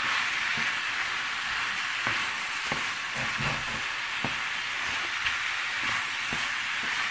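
Masala sauce and boiled macaroni sizzling steadily in a nonstick frying pan as they are stirred with a wooden spatula, with light knocks of the spatula against the pan about once a second.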